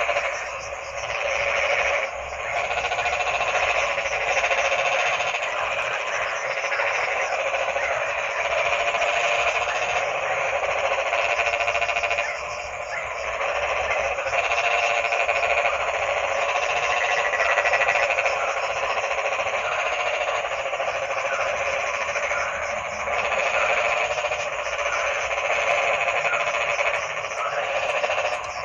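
Dense chorus of many frogs croaking at once, a continuous layered din with only brief lulls.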